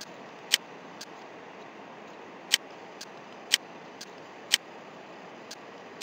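Computer mouse button clicks: a run of sharp single clicks, mostly about a second apart, some followed by a fainter click, over a steady background hiss.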